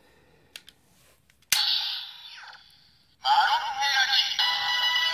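Kamen Rider Gaim Marron Energy Lockseed toy clicked open: a sharp snap about a second and a half in, a short electronic sound effect that fades away, then loud electronic standby music from the toy starting about three seconds in.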